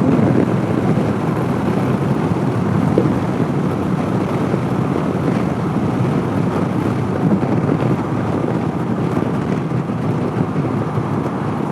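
Steady wind noise over the microphone of a rider on a moving 2014 Honda CB500X, with the motorcycle's running and road noise underneath.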